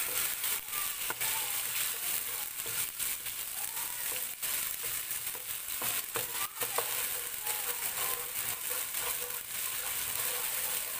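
Ginger-garlic-green chilli paste sizzling in hot oil and ghee in a nonstick kadai, stirred with a wooden spatula that scrapes and knocks against the pan now and then.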